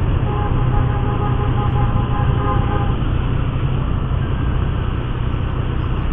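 Motorcycle riding at low speed, heard from a camera mounted on the bike: a steady low rumble of engine and wind noise, with a faint whine over it for the first few seconds.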